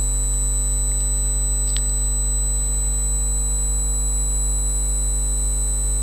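Steady electrical mains hum and buzz with a thin high-pitched whine over it. A faint click comes about two seconds in.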